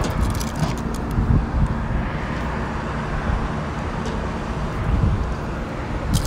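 Steady low outdoor rumble, with a few light clicks and taps in the first second or so and again near the end as the plastic GFCI receptacle and its wires are handled.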